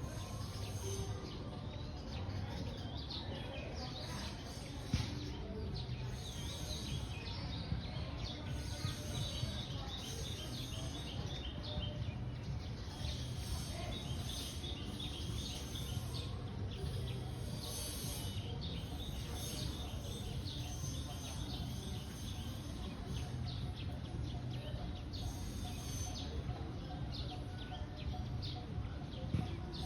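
Wild birds calling and chirping, with runs of quick repeated notes, over a steady low background rumble.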